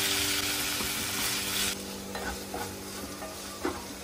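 Chopped vegetables sizzling in a non-stick kadai as a wooden spatula stirs them. About halfway through the sizzle drops away, leaving scattered scrapes and light taps of the spatula against the pan.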